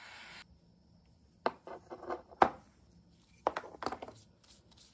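A steady hiss cuts off about half a second in. Then come two clusters of sharp taps and short scrapes from objects being handled on a workbench, the loudest tap about two and a half seconds in.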